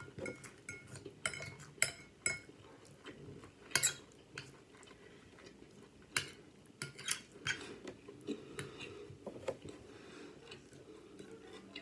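Cutlery clinking and scraping against a dish as salad is eaten, in irregular sharp clicks. The loudest click comes about four seconds in.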